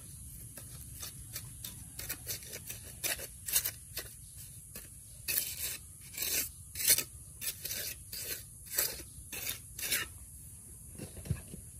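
Irregular scraping strokes, about two a second, as of a hand tool rasping against a rough surface; they thin out near the end.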